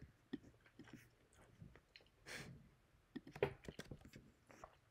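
Faint chewing close to the microphone: scattered small crunches and clicks of the mouth, with a short puff of breath a little past two seconds in.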